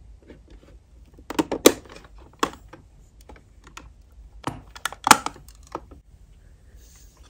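Pink plastic toy-kitchen cabinet doors pulled open by hand: a cluster of sharp plastic clicks and rattles about a second in, then another about four and a half seconds in, one for each door.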